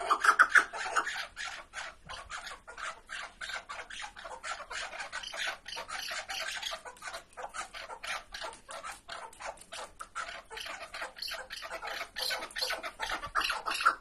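Chukar partridges calling in a rapid run of clucking 'chuck' notes, several a second. The calls are loud for the first second, softer through the middle, and build up again near the end.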